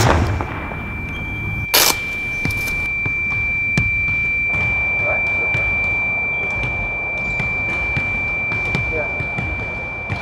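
A steady high-pitched ringing tone, a single pure note held without a break over a muffled background. A sharp knock sounds about two seconds in.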